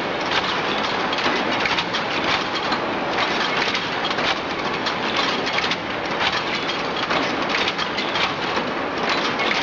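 Automatic chain bending/forming and butt welding machine running: a steady, dense clatter of many quick metal knocks.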